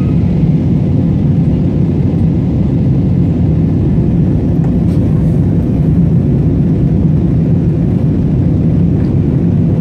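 Steady low rumble of cabin noise inside an Airbus A320-family jet airliner, engine and airflow noise during the descent to land.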